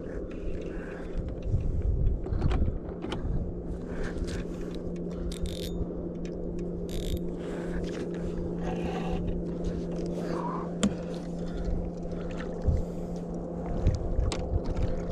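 Steady low hum of a small boat motor under the kayak, with scattered knocks and rumbling handling noise against the hull as a white bass is reeled in and landed.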